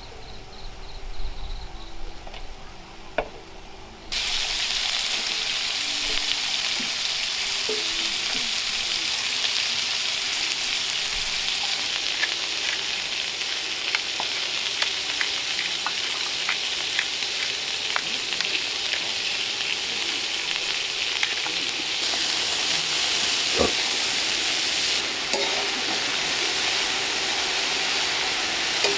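Beef sizzling hot in the pan: a steady loud hiss with scattered crackles and pops, starting suddenly about four seconds in after a quieter opening.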